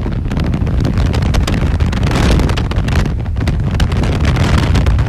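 Wind buffeting the microphone of a phone filming from a car moving at highway speed, a rough, uneven rush with a heavy low rumble of road noise under it.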